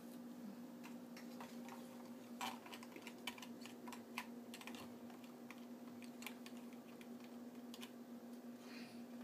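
Scattered light clicks and taps of plastic bottles and small glass jars being handled, a few sharper ones between two and a half and four seconds in, over a steady low hum.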